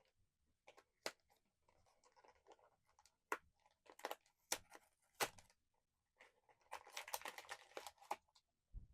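Blind-box packaging being handled and opened: a few sharp clicks and taps, then a second or so of crinkling, tearing wrapper about two-thirds of the way in.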